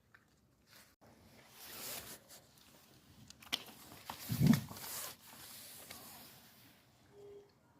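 Rustling and scraping, with a dull thump about four and a half seconds in.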